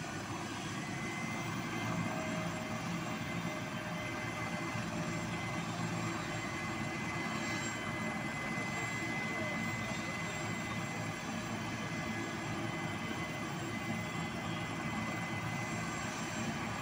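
A helicopter's turbine engine running steadily on the ground, a constant rushing noise with a thin high whine and no clear rotor beat.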